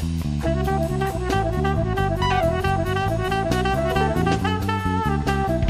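Instrumental background music: a drum kit keeps a steady beat under a bass line and a held lead melody.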